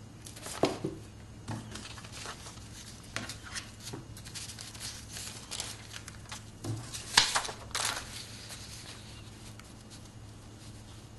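Paper rustling and being handled and pressed, with scattered light taps and knocks as a seal imprint is made; two sharper sounds a little past seven seconds in are the loudest.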